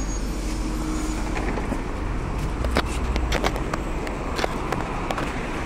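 Passengers' footsteps and shuffling as a crowd steps off a city bus onto the pavement, with scattered sharp clicks over a steady low rumble.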